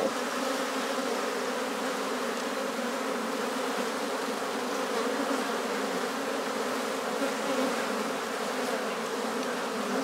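A swarm of honey bees buzzing at close range as they crowd around the entrance hole of a swarm box: a steady, low, even hum of many wings.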